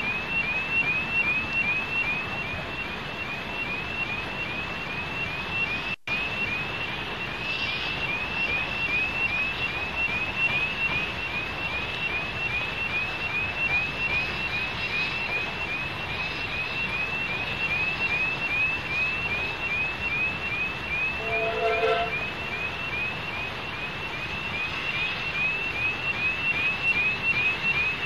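Level crossing alarm sounding, a rising electronic chirp repeated about twice a second, over the steady rumble of a narrow-gauge steam train with its coaches passing over the crossing. A short low-pitched toot is heard about two-thirds of the way through.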